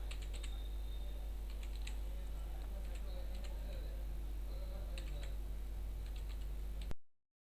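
Computer keyboard keys being typed in irregular bursts of clicks over a steady low electrical hum. All sound cuts off abruptly about seven seconds in.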